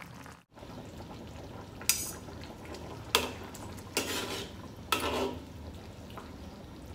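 Metal ladle and spatula stirring and scraping in a wok of simmering curry, with four sharp clinks of utensil on the pan about a second apart.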